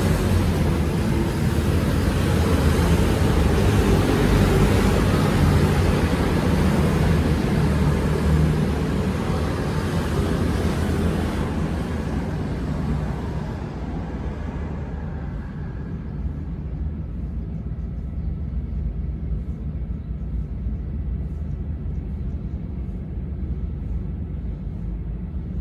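Steady rumble of passing motor traffic, loudest in the first half, its hiss fading away after about twelve seconds while a low rumble goes on.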